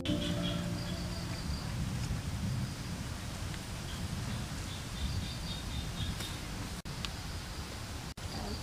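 Rural outdoor ambience: faint, scattered high chirps over a steady low rumble, with the tail of guitar music dying away in the first moment. The sound cuts out abruptly twice near the end.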